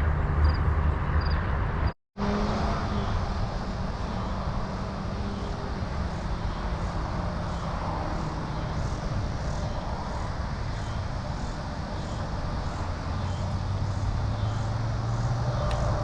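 Steady drone of interstate traffic, a low hum under a wide hiss, with a brief total dropout about two seconds in.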